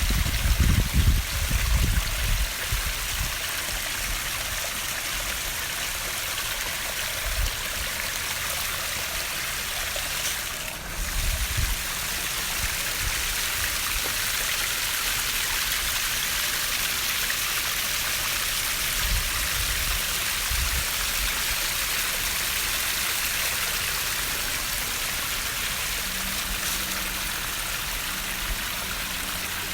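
Koi pond waterfall: water splashing and trickling steadily. A few low thumps on the microphone come in the first few seconds and again about a third and two thirds of the way through.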